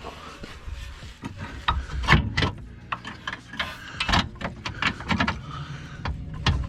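Irregular metal clicks and knocks of tools and suspension parts as a bolt is worked into a Honda Accord's rear strut.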